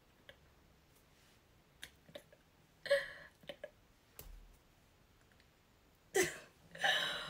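A woman's quiet pause: a few small clicks and a short murmured vocal sound, then a breathy exhale about six seconds in, the loudest sound in the pause.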